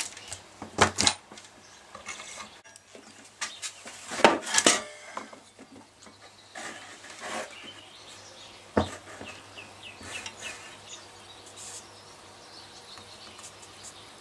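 Small tools and parts handled on a workbench: scattered sharp clicks and knocks as they are picked up and set down, the loudest about a second in, around four seconds in and near nine seconds, with light rubbing between.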